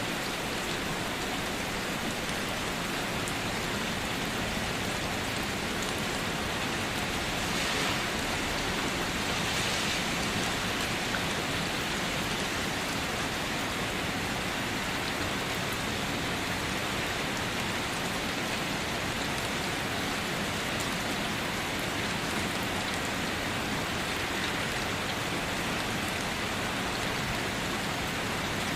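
Steady rain falling, an even hiss of many drops with faint scattered patters, swelling slightly a few seconds in.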